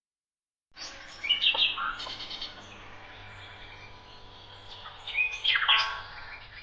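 Small birds chirping in two short bouts of quick, high chirps, about a second in and again near the end, over a faint steady background.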